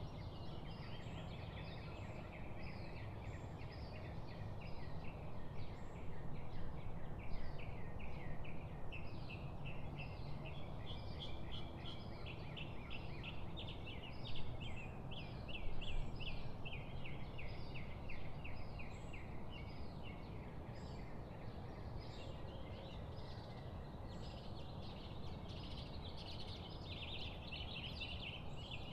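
Chorus of small songbirds chirping and twittering continuously in quick, overlapping notes, over a steady low background rumble.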